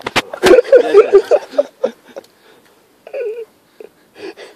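A person's voice wailing without clear words for about a second and a half near the start, then a shorter wail just after three seconds in.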